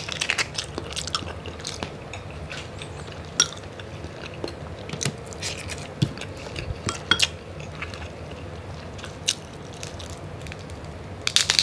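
Close-miked eating of mud crab: chewing and wet mouth sounds with scattered sharp clicks and crackles as crab shell is pulled apart and picked. A dense run of crunches comes near the end.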